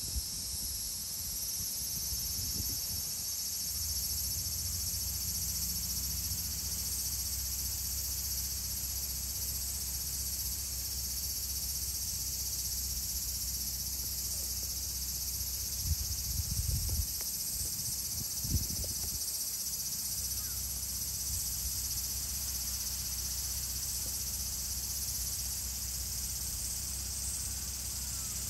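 Steady high-pitched chorus of insects, with a low rumble underneath and a few dull thumps about halfway through.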